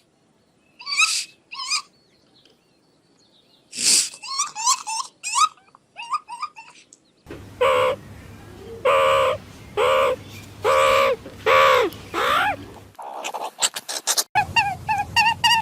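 Bird calls in several abruptly cut segments: two short chirps, then a run of rapid chirps, then six loud, evenly spaced calls over a low hum, then fast repeated chirping.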